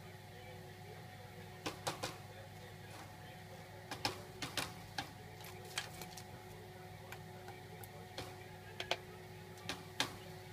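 Great spotted woodpecker pecking at a birch log: sharp, irregular taps, some single and some in quick pairs, over a steady low hum.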